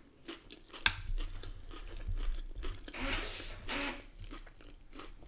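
Close-miked chewing and crunching of a mouthful of salad: lettuce, cucumber and onion with rice and chicken. There is a sharp click a little under a second in, and about three seconds in a louder rustling scrape lasting about a second as a wooden spoon digs through the lettuce in the glass dish.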